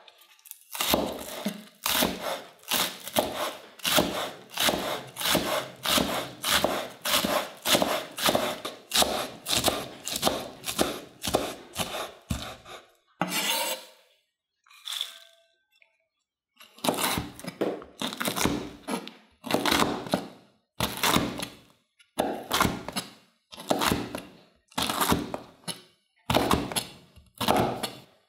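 Cleaver chopping green onions on an end-grain wooden cutting board: quick, even knocks about three a second. About halfway through the chopping stops for a few seconds while the chopped onion is scooped up on the blade, then steady chopping resumes at about two a second.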